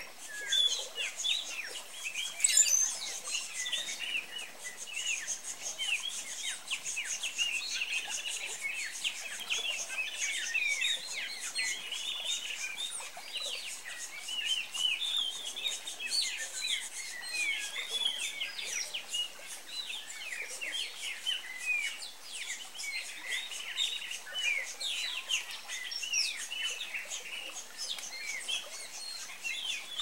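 A dense chorus of many birds chirping at once: short, high calls overlapping without a break.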